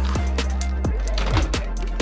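Electronic dance music with a steady, fast kick-drum beat over a held bass line, with crisp hi-hat ticks between the kicks.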